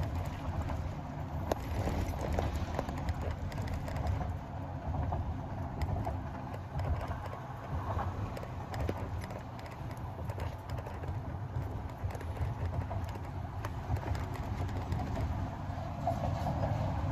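Road noise heard inside a car moving in slow traffic: a steady low rumble with scattered light knocks.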